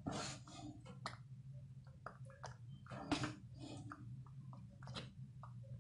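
Thick, fully cooked haleem squelching faintly as a wooden spatula stirs and lifts it in a pan, with scattered soft clicks over a low steady hum.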